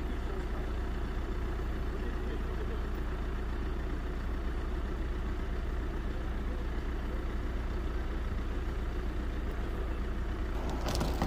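Crane truck's engine running steadily at an even idle, with a few short knocks near the end.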